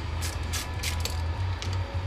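3/8-inch drive ratchet with a 14 mm socket clicking in short spurts as it works a bolt on an aluminium brake caliper, over background music.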